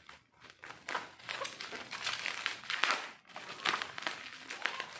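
Clear plastic packaging crinkling and rustling as it is handled, in irregular bursts.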